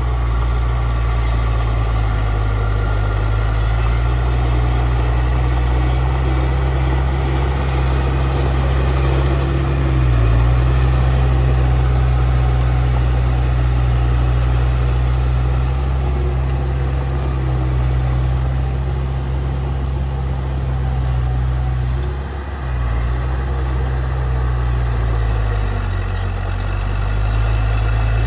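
Heavy diesel engine of earthmoving machinery running steadily with a deep, low drone. Its pitch shifts briefly a few times, and the level dips for a moment about two-thirds of the way through.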